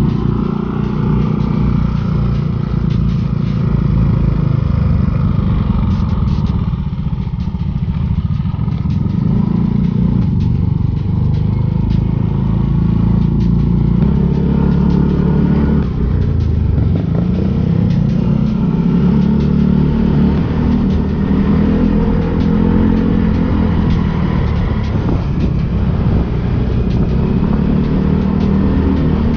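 Small Yamaha scooter engine running under way, its pitch rising and falling with the throttle, over a steady low rumble.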